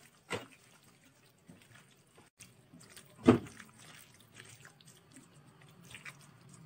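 A hand squishing and mixing mutton pieces with curd, fried onions and herbs in a bowl: soft wet crackles, with two short, sharper sounds standing out, one just after the start and a louder one a little past three seconds in.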